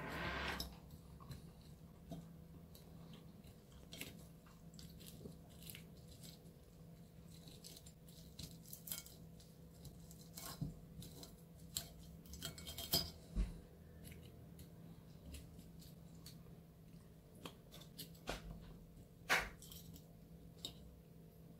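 Steel fork and knife tapping, clinking and scraping on a porcelain plate while cutting fried sole off its bones: scattered light clicks with a few louder clinks, over a faint steady low hum.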